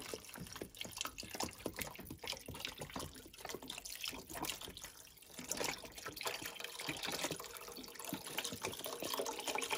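Seafood stock pouring from a carton into a pan of simmering tomato sauce, splashing steadily into the liquid and easing briefly about halfway.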